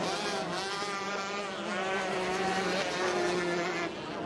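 Racing hydroplanes' engines running flat out across the water, several engine notes wavering up and down in pitch together.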